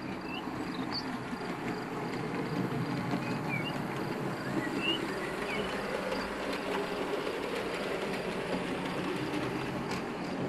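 HO narrow-gauge model freight train rolling along the track: a steady rumble of its wheels and motor on the rails, a little louder as it passes near the middle.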